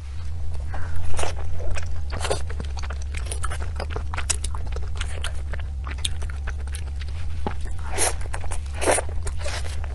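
Close-miked biting and chewing of crunchy desserts: dense, irregular crackles and snaps, with a steady low hum underneath.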